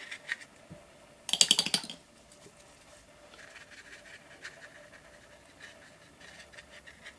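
A paintbrush scratching lightly over paper in short strokes, heard as faint, scattered ticks. About a second in comes a brief, louder rattle of rapid clicks.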